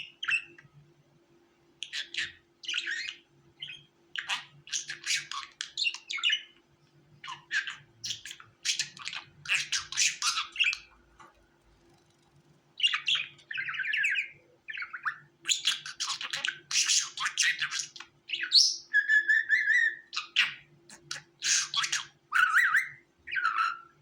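Budgerigars chattering and warbling in quick bursts of chirps and squawks, with brief pauses, and a clear whistled note partway through. A faint steady hum sits underneath.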